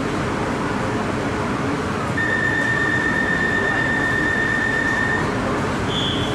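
Interior noise of a Bangkok MRT Purple Line train car with the train at rest: a steady rumble and hiss. A steady high tone sounds for about three seconds in the middle, and a brief higher tone comes near the end.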